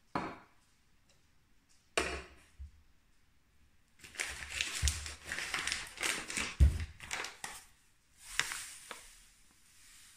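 Two sharp knocks about two seconds apart as a glass bowl is handled on a digital kitchen scale, then a paper bag of granulated sugar crinkling and rustling for several seconds as it is picked up and opened for pouring.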